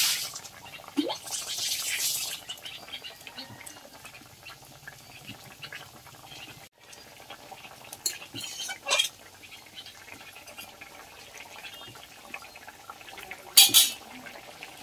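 A thin fish curry boiling in a metal kadai, bubbling steadily, while a metal spatula stirs and scrapes in the pan. There are a few short scrapes and clinks, the loudest a brief clatter near the end.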